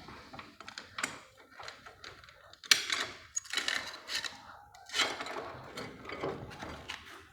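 Irregular metallic clicks, clanks and knocks of tools and parts being handled while a motorcycle rear wheel is taken apart, with the sharpest knocks about a second in, near three seconds and near five seconds.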